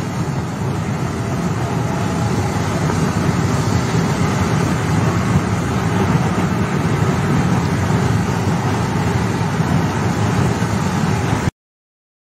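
Steady road and engine noise of a car driving along a road, which cuts off abruptly near the end.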